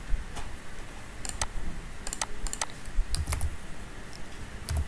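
Keystrokes on a computer keyboard: irregular clicks, a few at a time with short pauses between.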